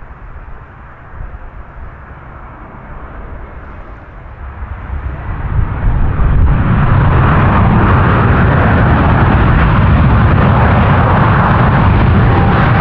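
Boeing 787-8 airliner landing. Its jet engine noise swells over a couple of seconds about halfway in, then holds as a loud, steady roar.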